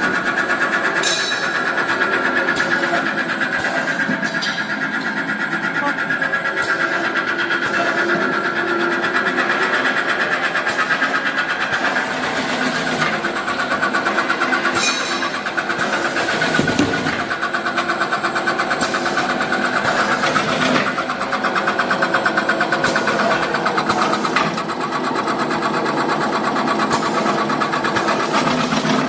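Peanut slicing machine running steadily with a fast, even chatter as peanuts are fed into its hopper and cut into thin slices.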